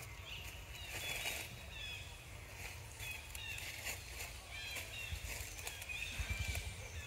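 Outdoor ambience: small birds chirping repeatedly in the background over a steady low rumble, with a few soft knocks about six seconds in.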